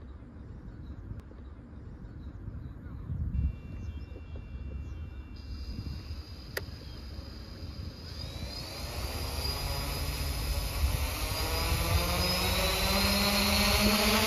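Quadcopter's brushless motors, driven by AM32 ESCs, spinning up the propellers for takeoff. A rising, multi-tone whine starts about halfway through and grows steadily louder toward the end as the throttle is raised. Before that there is only a low rumble.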